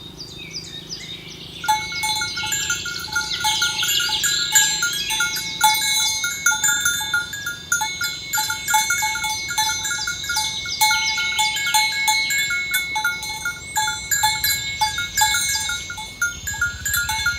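Several cowbells clanking irregularly on walking cattle, many overlapping ringing strikes, starting about a second and a half in.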